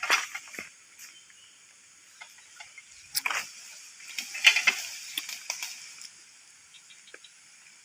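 Irregular scraping and rustling as a walk-behind plough tractor is dragged by hand down a steep dirt path, with the engine not running. The scraping comes in bursts, the strongest about three seconds in and again between four and five seconds in.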